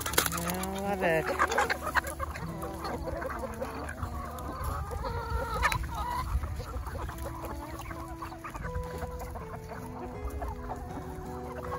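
A large flock of chickens clucking while they feed on tomato skins and cores, with a louder run of calls in the first second or so.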